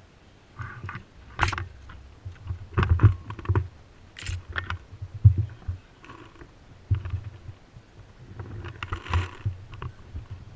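Irregular knocks, thumps and rustles of movement close to the microphone, with two sharp cracks, one about a second and a half in and one about four seconds in.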